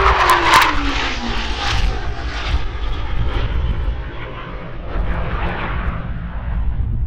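Jet engines of four Blue Angels F/A-18 jets flying past in formation: a steady roar and rumble, with a whine that falls in pitch during the first second or so as they pass.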